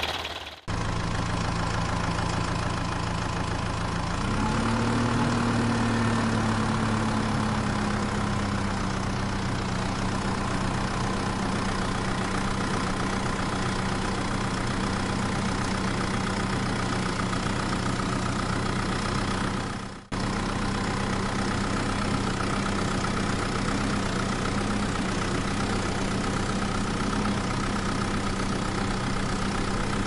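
A dubbed-in engine sound effect running steadily over toy construction vehicles. Its pitch rises about four seconds in and then holds, and it drops out briefly just after the start and again about twenty seconds in, where the effect is cut and restarted.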